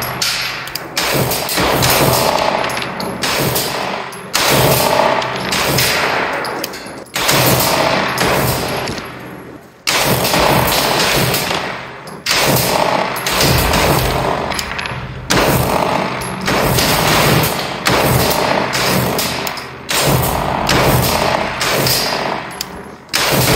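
Gunshots fired one at a time at a steady pace, about one every one and a half seconds, each with a ringing tail, over background music.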